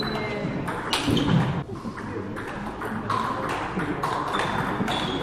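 Table tennis ball being struck back and forth in a rally: a string of sharp clicks as the celluloid/plastic ball hits the rubber bats and bounces on the wooden table, many with a short pinging ring. A dull thump about a second in.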